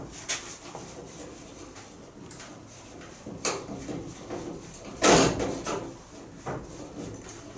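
Scattered knocks and rattles of tools and parts being handled during work on a car body, with one louder clatter about five seconds in.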